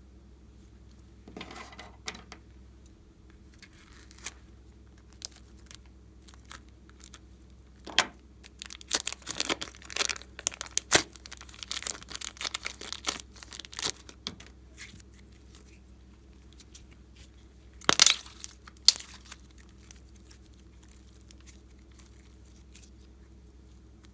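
Slime being worked by hand: scattered wet crackles and popping clicks, densest for several seconds in the middle, with a louder burst of crackling about eighteen seconds in.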